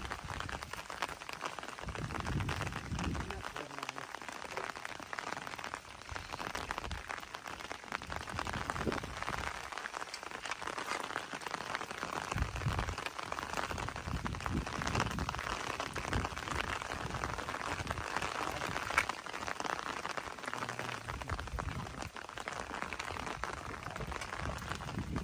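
Steady rain falling and pattering on surfaces, with occasional low rumbles.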